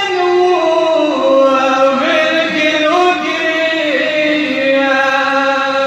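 Men chanting a Shia mourning lament (noha) into a microphone without pause, in long held notes that slide slowly from one pitch to the next.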